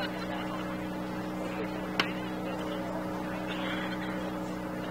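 Steady electrical hum with faint, distant voices, and a single sharp knock about two seconds in.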